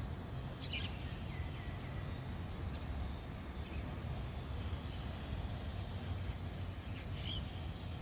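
Steady low outdoor background rumble with a few faint, short, high bird chirps, one about a second in and another near the end.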